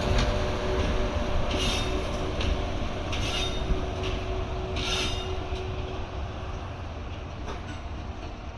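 JR EF81 electric locomotive running along the track, a low rumble that slowly fades as it moves away. Three brief rattles about a second and a half apart sound in the first half.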